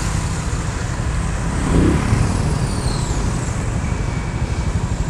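Road traffic on a city street: a steady rumble of passing car and motorcycle engines and tyres, with a faint falling whine between two and three seconds in.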